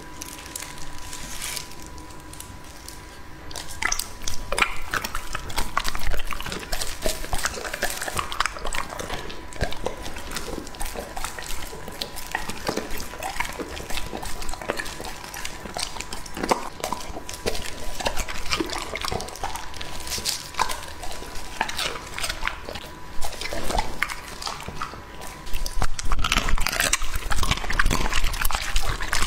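English Labrador retriever chewing raw meat noisily, with wet smacking and many sharp crunching clicks, louder near the end.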